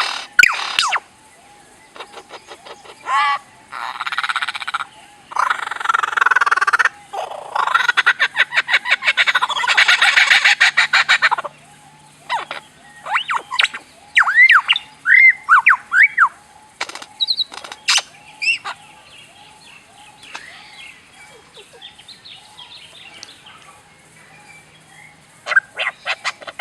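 A songbird singing in loud bursts of rapid, chattering repeated notes, then separate arched whistles, with short pauses between phrases.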